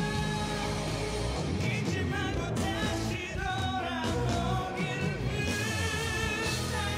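Male vocalist singing a slow ballad live into a handheld microphone, with held notes that waver in vibrato over band accompaniment.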